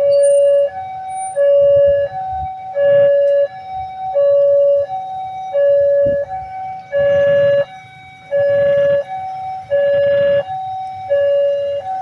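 Railway level-crossing warning alarm sounding a steady electronic two-tone signal, low and high tones alternating with each held a little under a second. This is the warning that a train is approaching the crossing. A few short bursts of rushing noise sound underneath.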